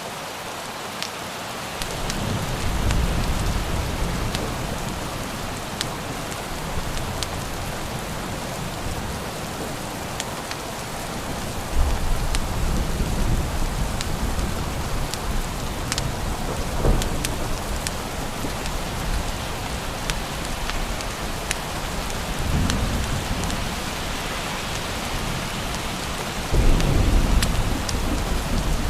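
Steady heavy rain with several low rolls of thunder, the strongest near the end, and scattered sharp clicks through it.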